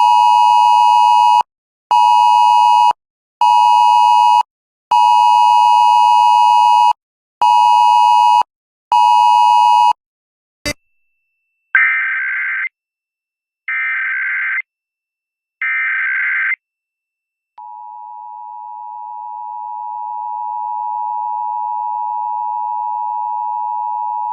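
Wireless Emergency Alert tone from a phone: a harsh two-tone beep in the pattern long, short, short, sounded twice. After a click, an Emergency Alert System radio broadcast sends three short screeching data bursts, the SAME header, then starts the steady two-tone EAS attention signal, which grows louder over its first few seconds; together they mark a nationwide alert test.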